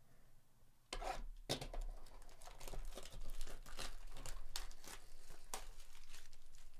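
Clear plastic shrink wrap being torn off a Panini Select UFC trading-card hobby box and crumpled in the hands. It starts with a sharp rip about a second in, then crackles and crinkles continuously.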